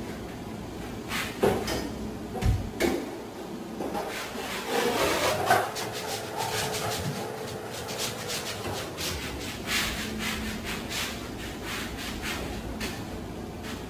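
Angled broom sweeping dust and debris across a bare plywood subfloor in quick repeated strokes, with a few knocks along the way.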